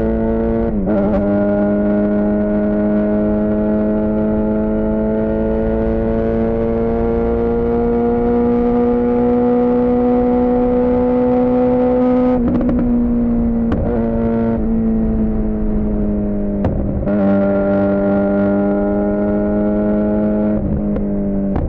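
Suzuki GSX-R600 inline-four running through a Yoshimura R11 exhaust while riding. The engine note holds steady and climbs slowly for about twelve seconds, then breaks off briefly several times, with the pitch shifting each time, like gear changes.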